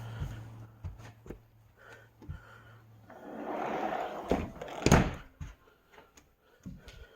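A door banging shut about five seconds in, with lighter knocks and handling sounds around it. A low steady hum stops about three seconds in.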